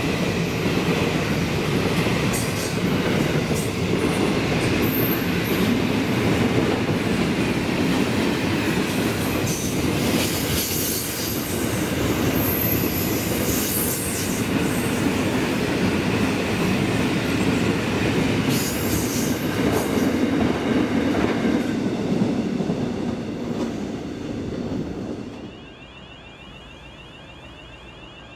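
Freight train wagons rolling past close by, wheels clacking over the rail joints and flanges giving short high squeals. The rumble drops away sharply about 25 seconds in as the train clears, leaving a faint, evenly repeating electronic warning tone.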